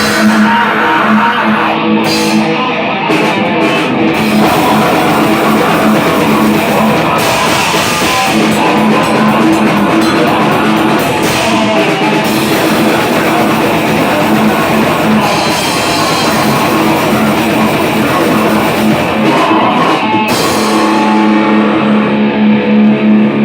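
Rock band playing live, loud: electric guitar over a drum kit.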